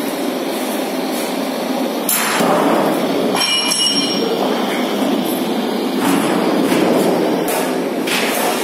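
Steady mechanical workshop noise, with a few metal knocks and a ringing metallic clink about three and a half seconds in, as the stainless-steel tank is handled.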